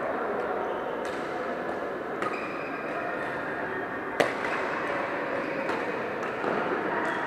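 Badminton rackets hitting shuttlecocks: scattered sharp hits, the loudest about four seconds in, over the steady background noise of a busy sports hall.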